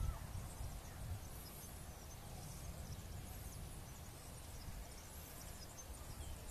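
Small birds chirping with short, high calls about once a second, over a low, uneven rumble of wind on the microphone that eases after the first second.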